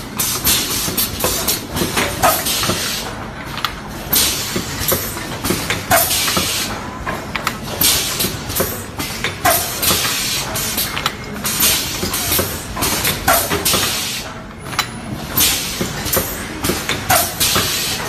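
Bag-on-valve aerosol filling machine running its cycle: repeated bursts of compressed-air hiss from its pneumatic heads over a steady metallic rattle, repeating about every two seconds.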